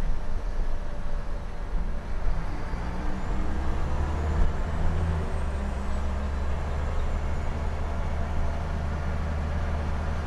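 Scania L94IB bus's rear-mounted five-cylinder diesel engine running under way, heard from inside the passenger cabin as a steady low drone over road noise. The drone grows stronger about two seconds in and then holds steady.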